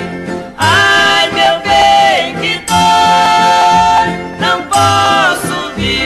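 Old Brazilian música caipira recording: plucked strings keep a steady pulse under a melody of long held notes in parallel, each sliding down at its end.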